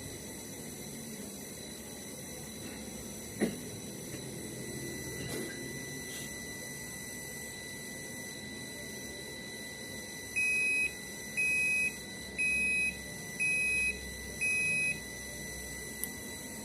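Sharp ES-H958T washing machine's control-panel buzzer beeping five times, about once a second, each beep a steady high tone. A single knock comes about three seconds in.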